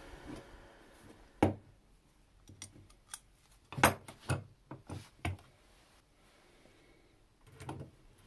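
A few sharp, separate metal clicks and knocks as a steel spanner and a pair of scissors are handled on a workbench and the spanner is fitted onto the scissors' pivot nut. The loudest knocks come about one and a half seconds and four seconds in, with a few more soon after four seconds and a small cluster near the end.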